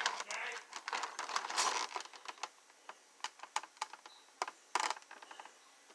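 Plastic action-figure packaging being handled and opened: rustling and crinkling for about two seconds, then scattered sharp clicks and taps of plastic.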